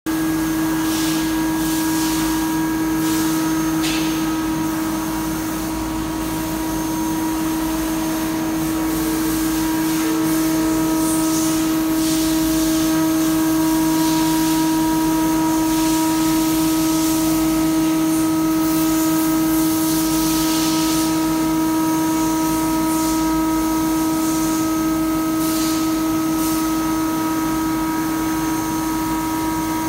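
Large CNC milling machine cutting a metal plate under flood coolant: a steady spindle whine of several constant tones, with the rough noise of the end mill in the metal and brief rushes of hiss now and then.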